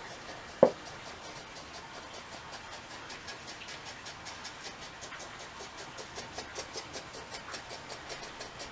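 A wooden block set down on a paper-covered tabletop with one sharp knock about half a second in. Behind it runs a low hiss with faint rapid ticking, several ticks a second.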